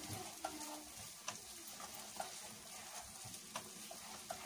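Rice, onion and tomato toasting in oil in a non-stick pot, sizzling faintly as a wooden spoon stirs it, with a few light scrapes and taps of the spoon against the pot.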